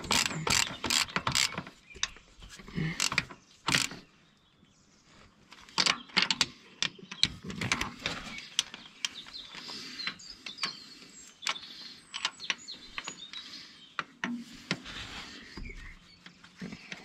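Ratchet wrench clicking in a quick, even run as a bolt is turned on the tractor's starter mounting, then a pause and scattered metal clinks and knocks of hand tools and parts.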